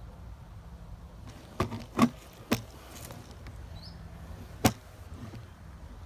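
Airsoft gun fired in single shots: four sharp pops, three close together and one more a couple of seconds later.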